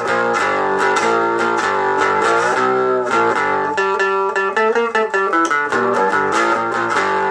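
Guitar played through a small 2.5-watt amplifier card driving an 8-inch Dean Markley speaker, with a little bit of overdrive from a Psycho knob effects pedal. Chords are strummed continuously in quick strokes.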